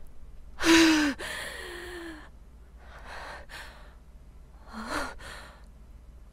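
A woman's acted sigh and gasp: a loud voiced 'ah' with a falling pitch about a second in, then two softer breathy exhales near the middle and toward the end.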